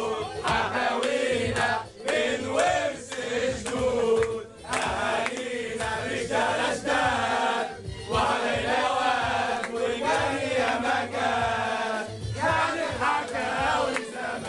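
A group of young men singing a chant together, in phrases broken by a short pause every few seconds.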